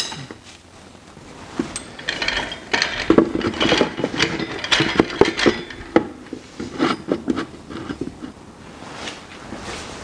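Metal tools clinking, knocking and rattling as they are handled, in a busy cluster from about two to seven seconds in, then a few scattered clicks.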